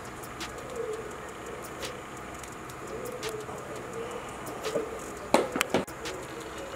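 Sparse crackling and ticking of a hot cast-iron paniyaram pan over a wood fire, with a quick cluster of sharp clicks about five seconds in.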